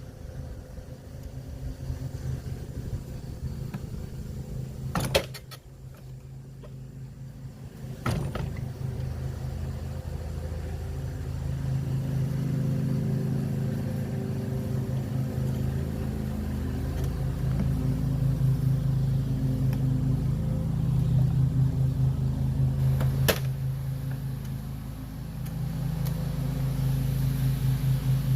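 Black & Decker LawnHog 19-inch electric lawn mower running under load while mowing, an even hum that dips for a few seconds about five seconds in and then builds again. A few sharp knocks, about five seconds in, near eight seconds, and once more about five seconds before the end.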